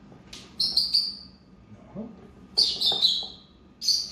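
Lovebird giving shrill, harsh chirps in three short bursts, agitated as a hand reaches into its box.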